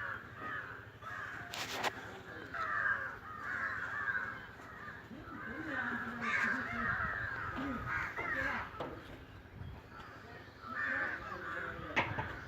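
Crows cawing over and over, with a sharp click or knock about two seconds in and another near the end.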